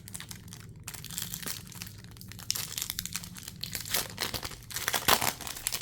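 Plastic foil booster-pack wrappers crinkling and tearing as packs of trading cards are opened by hand, in irregular bursts that grow louder about four and five seconds in.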